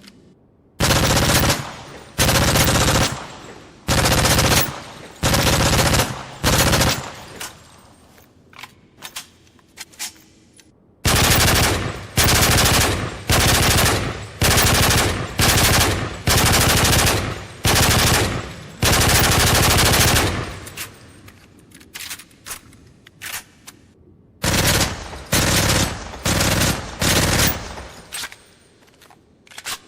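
Automatic gunfire sound effects: bursts of rapid fire, most about a second long with a longer run of bursts through the middle, and scattered single shots in the pauses between them.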